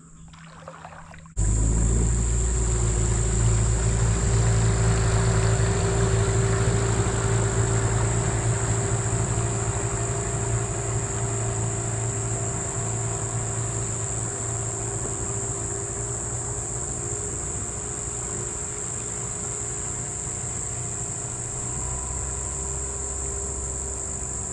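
Small dinghy's outboard motor running steadily as the boat pulls away, its drone slowly fading. It starts abruptly about a second in, and a steady high insect buzz runs alongside it.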